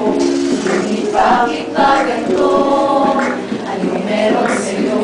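A small group of voices singing a pop song together in Tagalog, held notes in several parts at once, with no instruments heard.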